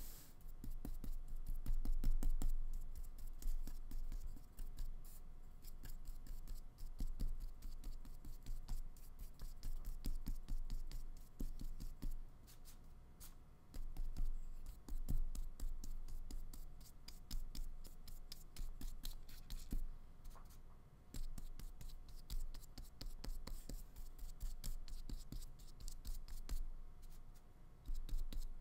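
Flat paintbrush loaded with acrylic paint scrubbing and scratching across paper in many short, irregular strokes.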